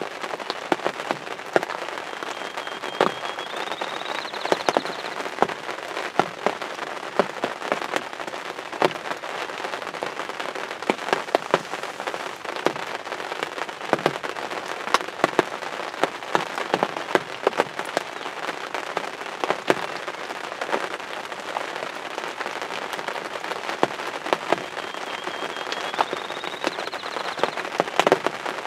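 Steady rain, with many sharp raindrop hits landing close to the microphone. A faint high whistle rises twice, once near the start and once near the end.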